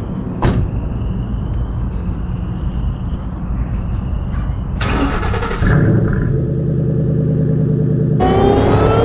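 Car engine rumbling steadily, with a short burst of noise about halfway through, then revving up with rising pitch near the end.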